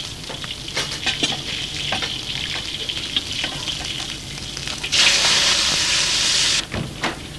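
Food sizzling in hot oil in a wok, with a few sharp clinks. About five seconds in, the sizzle jumps to a much louder burst as the wok fills with steam, lasting about a second and a half before cutting off suddenly.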